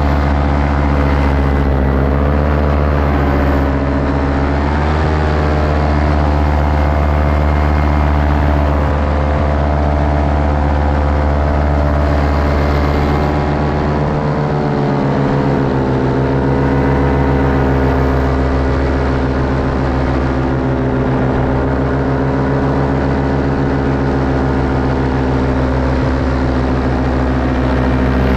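Paramotor engine and propeller running steadily under power. The pitch shifts slightly a few seconds in and dips again around the middle before settling.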